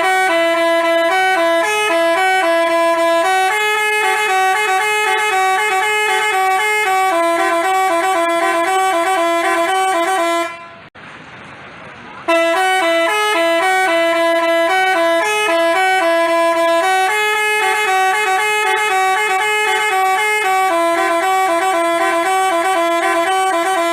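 Telolet basuri multi-tone bus horn playing a melody of quick stepped horn notes. The tune stops about ten and a half seconds in and starts over a couple of seconds later.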